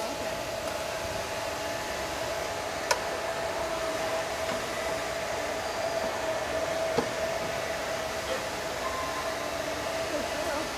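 Dog-grooming blow dryer running steadily: a constant rush of air with a steady tone through it. Two short sharp clicks, about three and seven seconds in.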